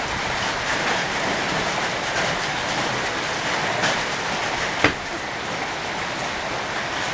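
Heavy rain with hail pouring down: a steady hiss with scattered ticks of hailstones striking, and one sharp knock a little under five seconds in.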